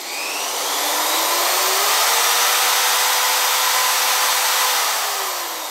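Bosch GSB 16 RE corded impact drill running free with a bit in the chuck, no load and no impact. The trigger is squeezed so the motor whine rises over about the first two seconds, holds steady at high speed, then falls as the trigger is eased off near the end.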